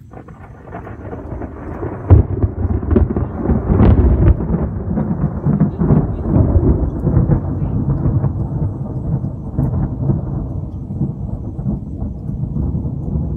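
Thunder: a sharp crack about two seconds in, swelling into a long, loud, rolling rumble that eases only slowly.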